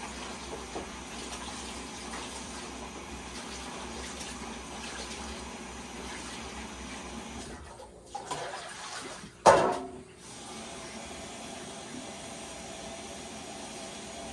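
Water running steadily, with a brief loud burst about nine and a half seconds in.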